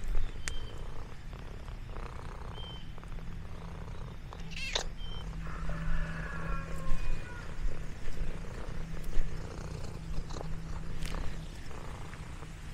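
Domestic cat purring, a steady low rumble, with a drawn-out meow about six seconds in.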